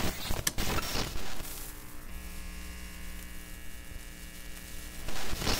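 Crackle and scattered clicks, then a steady electrical hum from about two seconds in, with a louder burst of noise near the end.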